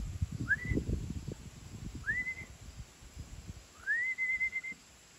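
A person whistling to call a returning racing pigeon into the loft: three rising whistles, the third longer with a wavering held end, over soft knocks and rustling.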